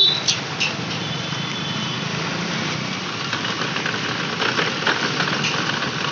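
A motor vehicle engine running steadily in street traffic noise, with scattered light clicks and knocks.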